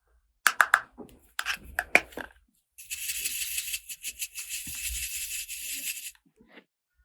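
Plastic toy packaging and parts being handled: a few sharp plastic clicks and crackles, then about three seconds of steady scratchy hiss that stops suddenly.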